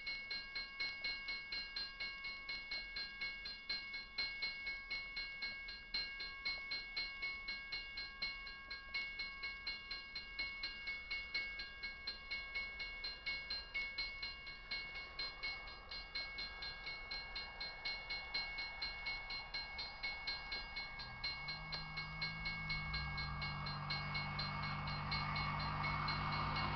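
Railroad grade crossing warning bell ringing in a fast, steady rhythm. In the last several seconds a low drone and rushing rumble grow louder as the loaded coal train's lead GE AC44CW diesel locomotives approach.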